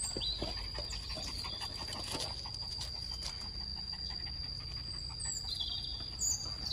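Steady high-pitched insect drone, with a few short bird chirps near the start and again near the end.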